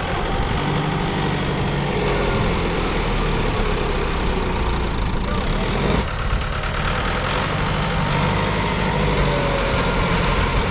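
Kubota tractor's diesel engine running hard under heavy load, straining to pull a trolley loaded with soil through loose sand.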